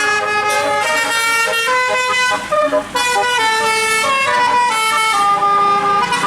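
Bus telolet horn (Basuri) playing a tune of held, reedy notes that step up and down in pitch, each note lasting about half a second to a second.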